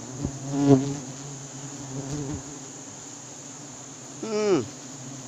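A swarm of giant honey bees at a sialang-tree nest buzzing steadily around the honey hunter's veil. Two short calls cut through it, one about a second in and one near the end that drops sharply in pitch.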